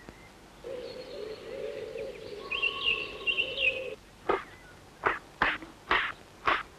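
Chickadee sounds: about three seconds of wavering, chattering calls with high chirpy notes, then five short, sharp notes about half a second apart.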